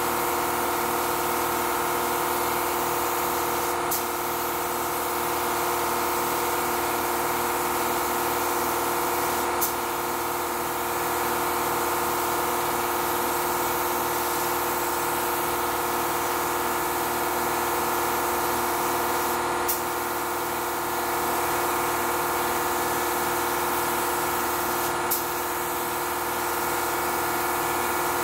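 LVLP gravity-feed spray gun hissing steadily as it sprays paint, over the steady hum of a 29-gallon air compressor running. A few faint clicks come through.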